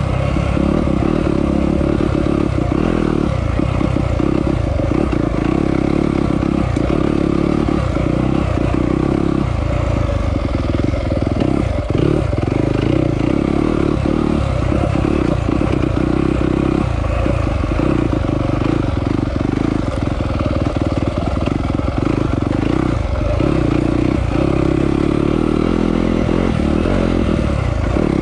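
Yamaha off-road motorcycle engine running hard while being ridden, its note dipping briefly and often as the throttle is rolled off and back on.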